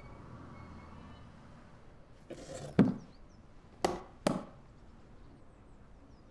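A leather case handled on top of an upright piano: a short scrape ending in a solid thud, then two sharp knocks about half a second apart.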